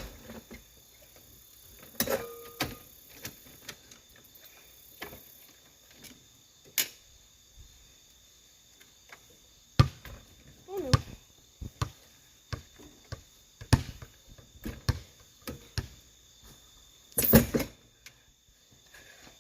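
Irregular thumps and knocks, a dozen or more spread out with long gaps, the loudest in a short cluster near the end.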